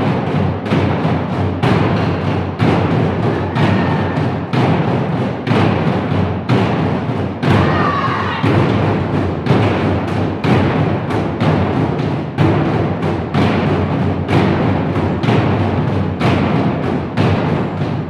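Two players beating large Korean barrel drums with wooden sticks in a fast, steady rhythm, several strikes a second.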